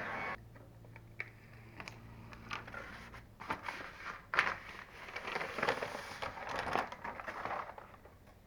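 Crinkling and crackling of sheet material being handled, with scattered clicks and taps, busiest in the second half.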